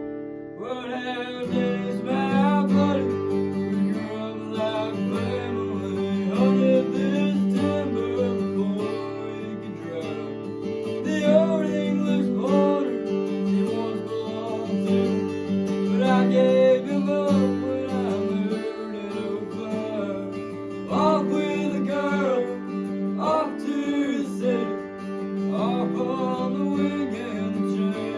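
Acoustic guitar strumming a country song, with a wavering melody line over the chords that comes in about a second in.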